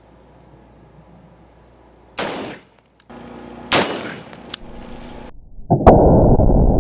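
Rifle shots from a 16-inch LR308 in 7.62x51mm (.308), fired at a ceramic armour plate: a sharp report about two seconds in and another about a second and a half later, followed by a click. From about six seconds on comes a loud, steady rushing noise with a faint steady tone over it.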